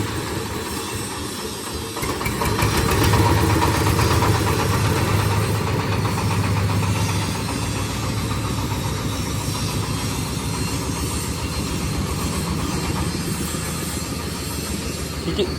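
Stationary diesel engine driving a corn sheller machine, running steadily and growing louder about two seconds in.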